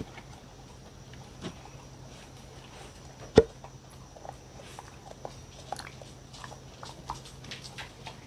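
A dog licking and lapping at a near-empty wooden bowl, with small wet tongue clicks scattered throughout and one sharp knock about three and a half seconds in.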